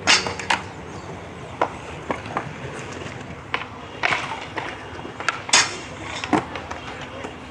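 Skateboards on a low metal flat rail and concrete: a board sliding off the rail and landing with sharp clacks at the start, wheels rolling, then another skater popping onto the rail about halfway through. That board scrapes briefly along the rail and lands with a clack.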